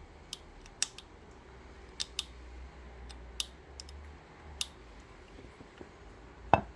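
A small hand tool scratching at a burned-out LED chip on a light bulb's board, scraping it back toward bare metal: irregular sharp clicks and scrapes about a second apart, the loudest near the end.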